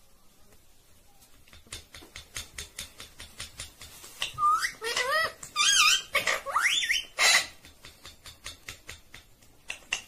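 Indian ringneck parakeet giving warbling, wavering whistled calls with sharp upward glides, loudest in the middle, set between runs of rapid sharp clicks at about five a second.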